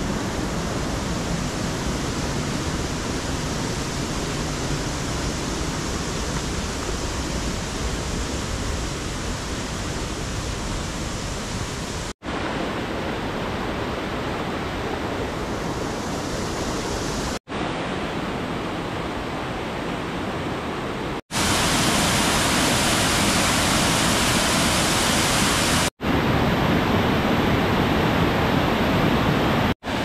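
Mountain stream rushing over granite cascades and small waterfalls: a steady rush of water, broken by brief dropouts at several cuts, and loudest and hissiest from about two-thirds of the way through.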